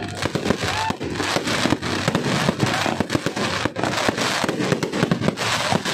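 Fireworks display: a dense, unbroken run of bangs and crackling, one burst right after another.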